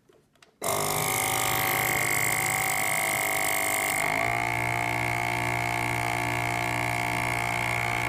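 Small electric vacuum pump motor of a FoodSaver vacuum sealer, switched on about half a second in and running steadily against a hose plugged shut with a pencil. About four seconds in, its note changes as the sealed line pulls down. This test clears the pump and hose and points to leaking foam door gaskets.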